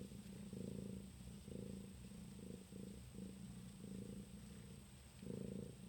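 Domestic cat purring close to the microphone, the low buzz swelling and fading in pulses about twice a second with her breathing.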